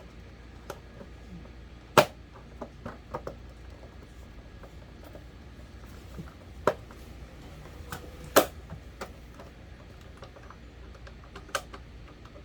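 Scattered sharp clicks and knocks of electric fan parts being handled and fitted during a repair, the loudest about two seconds in, with a few more single knocks spread through the rest.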